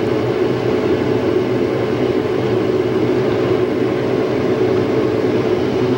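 Automatic car wash in its spot-free rinse stage, heard from inside the car: a steady rush of spray on the car body over a constant machinery hum.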